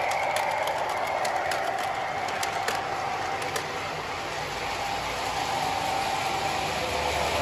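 MTH model subway train running along the track: a steady motor whine with sharp wheel clicks over the rail joints, fading as the train moves away. The running noise grows louder again near the end.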